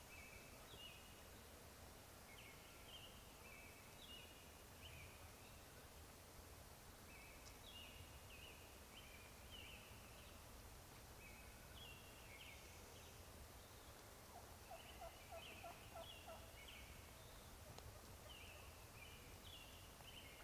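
Wild turkeys calling faintly: short groups of high stepped notes repeated every couple of seconds, with a lower, rapid rattling run of notes about three-quarters of the way through.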